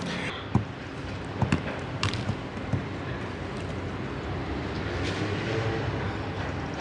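A football thudding a few times on artificial turf as it is thrown back and bounces, over a steady outdoor background noise.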